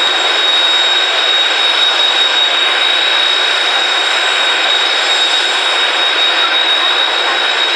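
Jet engines running steadily: a constant high whine over an even rush of engine noise.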